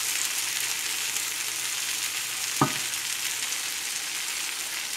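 Pancakes sizzling steadily in a hot skillet, with a single sharp tap about halfway through.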